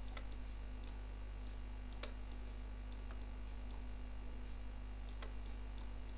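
Steady electrical mains hum with a few sharp computer mouse clicks, spaced a second or two apart, as vertices are clicked and selected.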